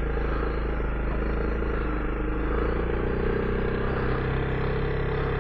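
Honda CRF300L Rally's single-cylinder four-stroke engine running at a steady speed under way, with wind and riding noise.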